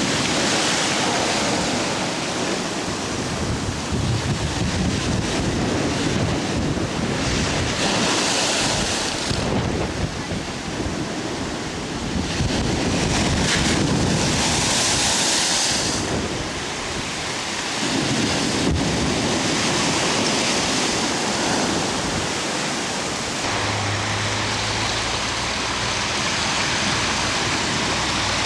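Hurricane storm surf pounding against a sea wall: a continuous rush of breaking waves with louder crashes about eight and fourteen seconds in, and strong wind buffeting the microphone.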